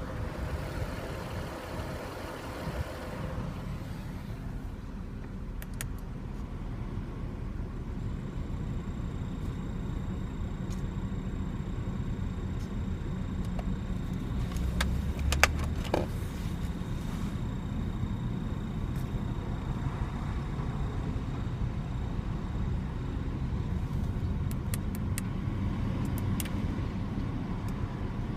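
Audi A6 C5 engine running at idle under the bonnet, with a faint, steady high-pitched whistle that comes in several seconds in and fades later on. Two sharp clicks halfway through.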